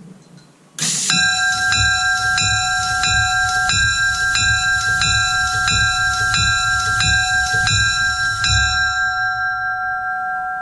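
12-inch Howard bronze locomotive bell rung by its pneumatic (air-driven) ringer: it starts about a second in and strikes about a dozen times, roughly one and a half strikes a second, with a low thump at each swing. The strikes stop near the end, and the bell's tone rings on and slowly fades.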